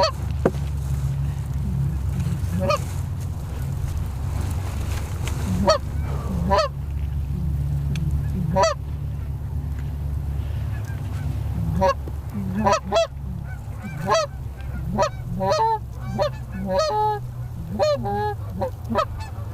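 Canada geese honking: a few scattered calls at first, then many in quick succession from about twelve seconds in, over a steady low rumble.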